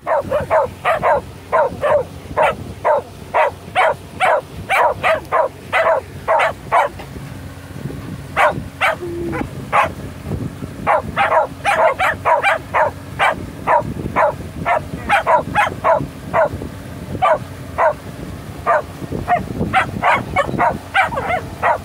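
Several Shetland sheepdogs giving excited, high yipping barks in a rapid, unbroken run of short calls, about two to three a second, with a brief lull about seven seconds in.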